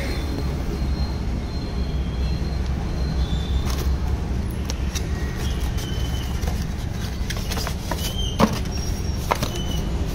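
Hands opening a cardboard box and lifting off a foam packing lid: scattered taps, scrapes and short squeaks, most of them in the last few seconds. Under them runs a steady low background rumble.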